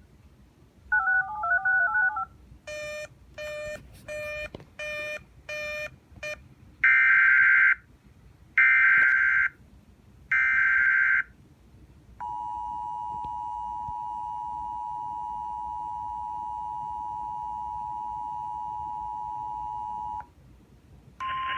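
Emergency Alert System tones between two alerts. The last of the end-of-message data bursts of the concluded alert comes first, then a quick run of short beeps. Then come three roughly one-second SAME digital data bursts opening the new alert's header, and the steady two-tone EAS attention signal held for about eight seconds.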